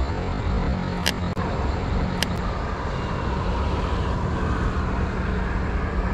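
Steady low rumble and hiss of outdoor background noise, with two sharp clicks about one and two seconds in.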